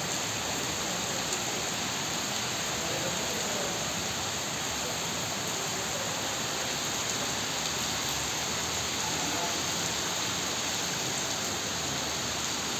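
Steady heavy rain falling, an even hiss of rain on surfaces with no change in level.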